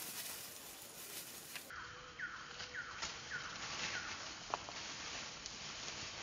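Baby pig-tailed macaque squealing: a run of four or five short high cries, each falling in pitch, about two a second, followed by a single sharp click.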